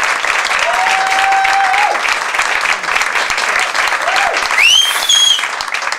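Audience applauding and cheering, with a long held shout about a second in and a high rising whoop about four and a half seconds in.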